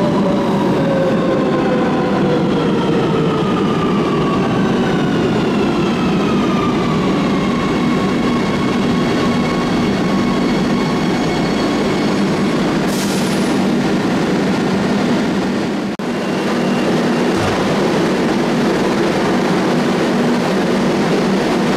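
Madrid Metro Line 3 train braking to a stop at the platform. Its traction motor whine falls in pitch over the first eight seconds or so, then the standing train hums steadily, with a short hiss about thirteen seconds in.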